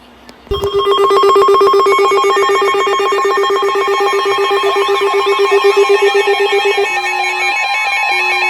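Several NOAA weather alert radios going off together for a new warning, starting suddenly about half a second in. A steady high alert tone runs under a fast-pulsing lower beep, and a warbling siren-like tone joins about halfway. Near the end the lower beep breaks into separate beeps about a second apart.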